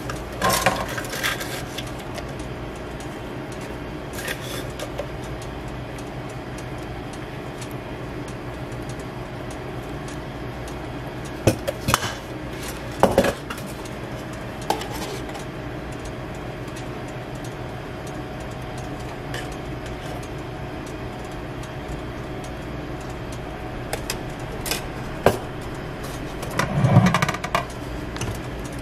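Scattered clinks and knocks of utensils against metal trays and dishes over a steady hum of kitchen equipment, with a louder spell of clatter near the end.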